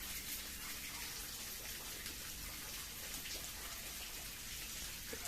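Faint, steady background hiss with a few soft ticks, and no clear event standing out.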